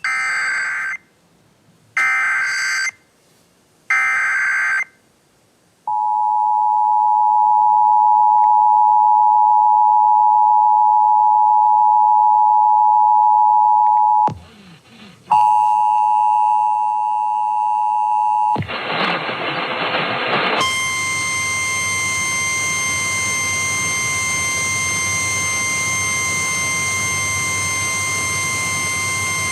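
Emergency Alert System broadcast alert: three short screeching SAME data bursts about a second apart, then the steady two-tone EAS attention signal, broken once after about eight seconds. After a couple of seconds of hiss, a single steady NOAA Weather Radio warning tone runs over a hiss.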